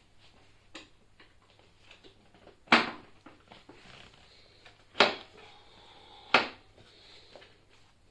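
Hand work on an e-scooter wheel and tyre: three sharp knocks about two seconds apart, with a few lighter clicks between them.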